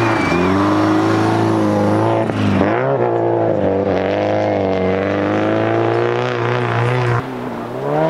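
Subaru rally car's flat-four engine revving hard, the revs dropping sharply at a shift about two and a half seconds in and then climbing and wavering as it powers through the corner. The sound cuts off suddenly near the end and another engine starts rising.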